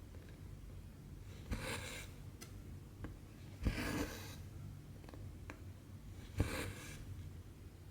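Cross-stitch needle popping through 14-count fabric and the floss drawn through with a short rustling swish, three times about two and a half seconds apart, with a few faint ticks between.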